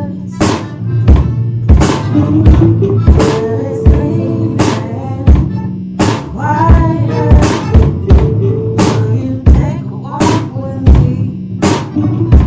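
Live band playing an instrumental passage: drum kit with a steady kick-and-snare beat about every 0.7 seconds under bass guitar, electric guitar and held accordion chords.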